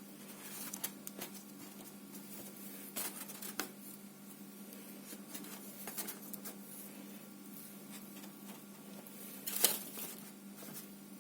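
Slime being worked by hand, giving soft, irregular clicks and squelches, with one louder pop near the end.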